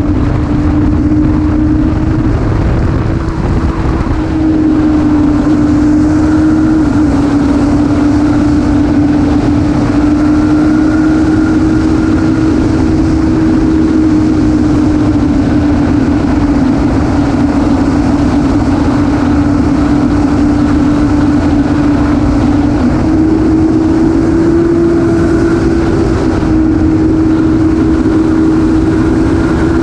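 Motorcycle engine running at a steady cruising speed. Its note holds nearly level with small dips and rises, under heavy wind noise on the microphone.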